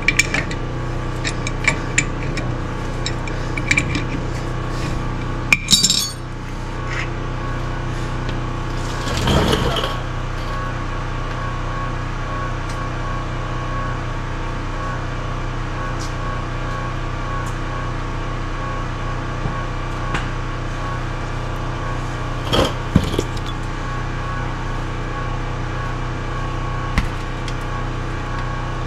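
Scattered metal clinks and knocks of hand tools and parts being handled, with a short rushing noise about nine seconds in, over a steady hum.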